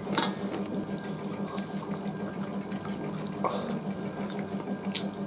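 Eating sounds: fingers mixing rice and curry on steel plates and chewing, with scattered small clicks, over a steady low hum.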